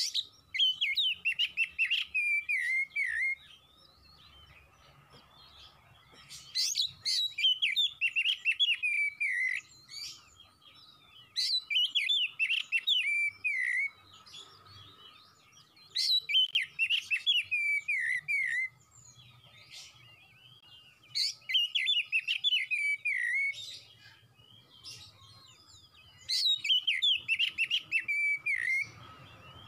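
Oriental magpie-robin singing: six loud phrases of about three seconds each, roughly every five seconds, each a quick run of sharp whistled notes that falls in pitch. A faint steady high tone hangs in the gaps between phrases.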